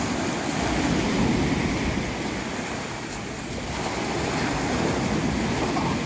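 Sea waves breaking and washing in over the shore, a continuous surf rush that eases a little about halfway through and then builds again.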